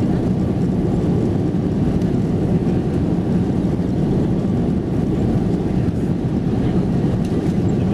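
Steady low rumble of a jet airliner's engines heard from inside the cabin as the plane taxis on the ground, even in level with no surge of take-off power.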